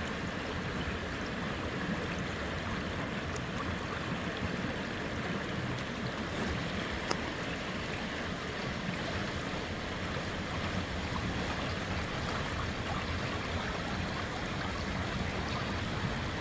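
Steady rush of river water flowing over rocks, with one faint click about seven seconds in.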